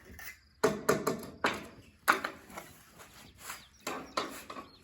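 Concrete finishing tools scraping and knocking on a setting slab: a string of short, irregular scrapes and taps about a second apart.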